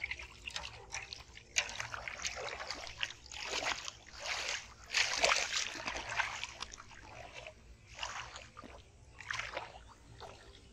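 Shallow muddy water splashing and sloshing in irregular bursts as hands grope and sweep through it.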